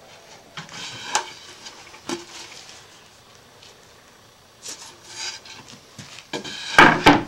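Cut plywood pieces knocking and scraping against a perforated wooden workbench top as they are lifted off and set back down. There are scattered knocks in the first couple of seconds, more around the middle, and the loudest clatter near the end.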